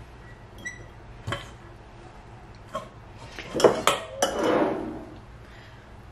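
Glass mason jars and a stainless steel mixing bowl clinking and knocking as roasted green peppers are packed into pint jars. There is a ringing glass clink about half a second in, scattered light knocks, and a louder run of knocks with rustling and scraping between about three and a half and five seconds.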